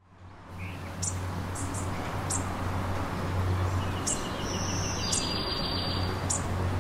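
Outdoor ambience fading in: birds chirping in short high calls over a steady low hum, with a buzzy trill from about four to six seconds in.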